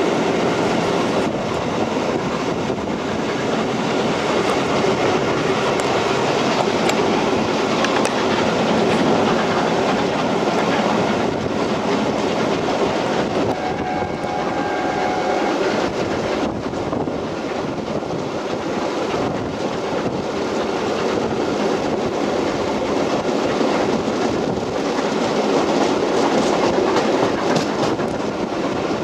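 A steam-hauled train at speed, heard from an open carriage window: the wheels run on the rails and air rushes past, with the exhaust of the locomotive, LNER A4 Pacific 60009 Union of South Africa, further ahead. A brief steady tone sounds about halfway through.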